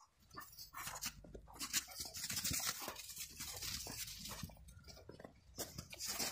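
Irregular crunching and scuffing of packed snow under dogs' paws and boots as the dogs scramble about.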